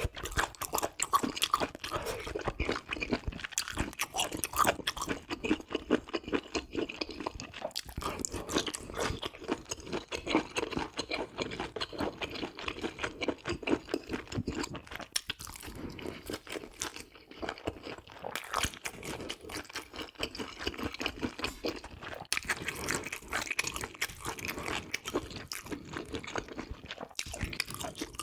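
Close-miked chewing of cooked intestines and offal: continuous wet, crunchy mouth sounds, irregular and unbroken.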